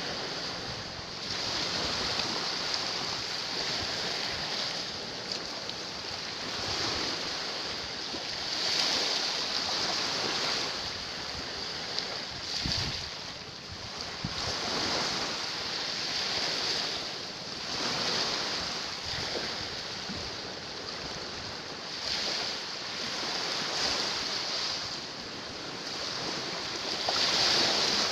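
Small waves washing in and out over rocks at the water's edge, swelling and ebbing every few seconds, with wind on the microphone.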